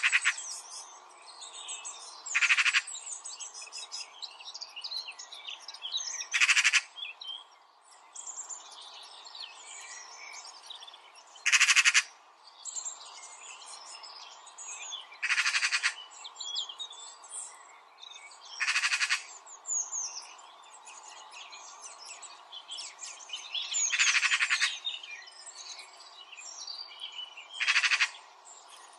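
Birds chirping, with one short, loud rattling call repeated about every three to five seconds, eight times in all.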